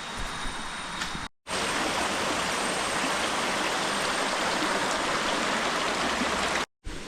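Steady rushing of flowing river water, coming in after a brief cut about a second and a half in and ending abruptly near the end.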